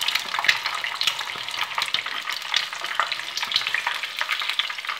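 An egg deep-frying in hot olive oil, the oil sizzling and crackling with many small pops as the white crisps into lacy brown edges, while a metal slotted skimmer stirs and lifts the egg in the pan.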